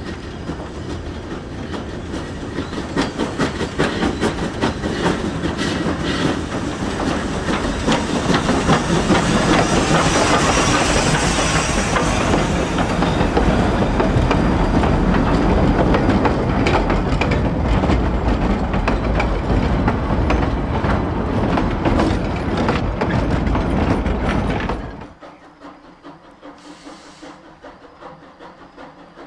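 Narrow-gauge steam train, Denver & Rio Grande No. 425, an 1895 Baldwin consolidation, rolling past with its wheels clicking over the rail joints and some steam hiss, growing louder toward the middle. About 25 seconds in it cuts off suddenly to a much quieter steady sound.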